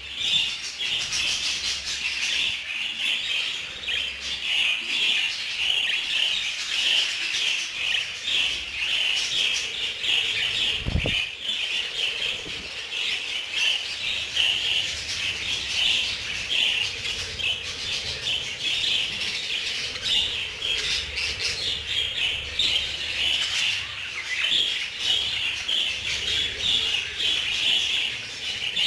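A flock of budgerigars chattering continuously, a dense mass of overlapping chirps and warbles.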